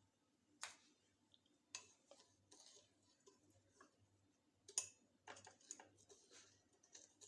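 Near silence broken by faint, scattered clicks and light scrapes of a spoon against a cooking pot, as two spoonfuls of sweetener are added to the milk.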